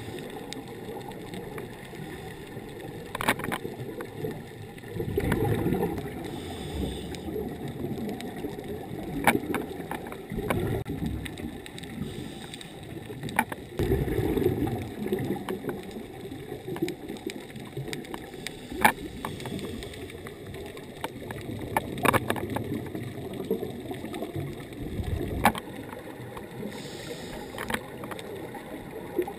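Muffled underwater noise picked up by a dive camera in its housing: a low rumble that swells every few seconds, with scattered sharp clicks.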